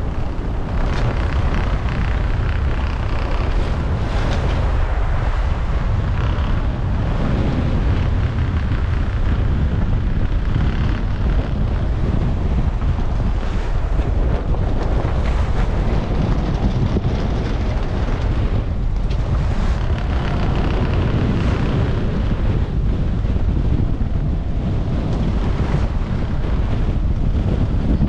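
Strong wind buffeting the microphone on a sailboat's deck, over the rush of waves and water along the hull.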